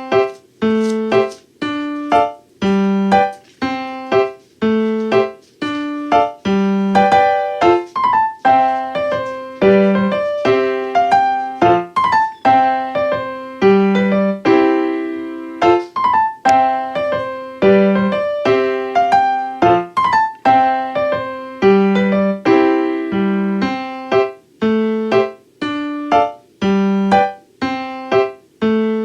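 Background music: a piano or electric-piano tune of struck, decaying notes over a steady, repeating bass pattern.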